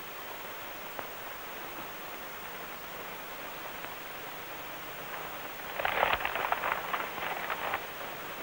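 Steady soundtrack hiss, then about six seconds in a couple of seconds of crinkling as brown wrapping paper around a package is handled.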